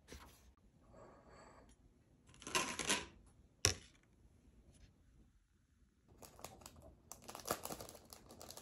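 Paper pages of a book being turned, with a single sharp click midway. Then a plastic package of rice paper wrappers crinkles as it is handled over the last couple of seconds.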